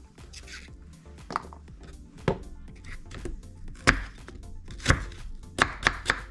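Kitchen knife dicing apple on a wooden cutting board: irregular sharp knocks as the blade cuts through and strikes the board, the loudest about four and five seconds in, with a quick run of three near the end.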